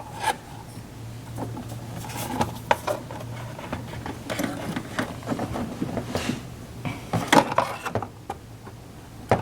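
Irregular clicks, taps and light clinks of car parts and hand tools being handled and fitted during reassembly, with a denser flurry of clicks near the end. A low steady hum runs under the first few seconds.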